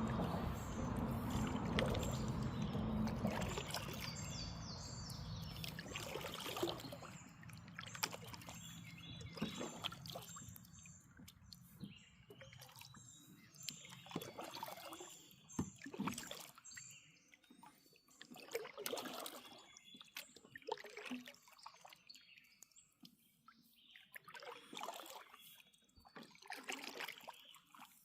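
Creek water trickling and sloshing against a kayak, with irregular small splashes and drips. A steady water rush dominates for the first few seconds, then drops away to quieter lapping.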